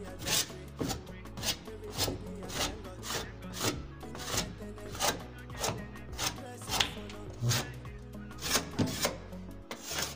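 Steel trowel scraping and smoothing wet plaster of Paris across a ceiling in repeated short strokes, about two a second, over background music.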